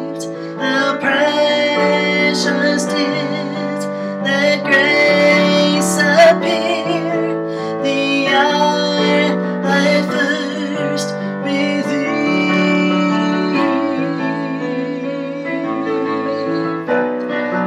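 Piano playing a slow accompaniment, with a woman's voice singing a wavering, vibrato-laden line over it.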